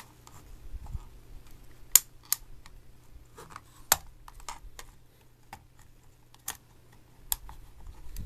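Flathead screwdriver prying at the seam of a plastic telephone handset: scattered sharp plastic clicks and snaps as the blade catches and slips, the loudest about two and four seconds in. The snap-together shell is resisting and does not open.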